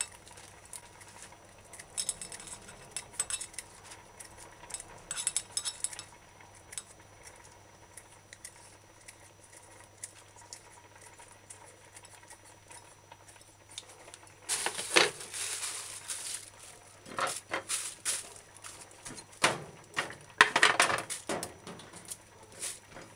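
Kitchen scissors snipping dried chili peppers into small bits over a ceramic plate: scattered quiet clicking snips at first, then louder scrapes and clinks against the plate from about halfway through.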